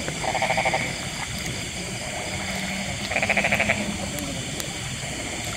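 Frogs calling in a flooded rice paddy at night: short, rapidly pulsed bleating trills, one about half a second in and another about three seconds in, over a steady high-pitched background chorus.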